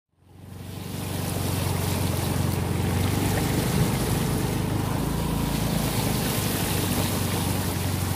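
Motorcycle riding through floodwater on a road: a steady engine hum under the rush of water spraying up from the front wheel and wind noise. It fades in just after the start and holds steady.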